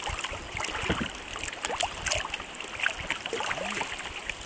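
Canoe being paddled on a river: water lapping and trickling around the hull, with scattered small drips and splashes from the paddle.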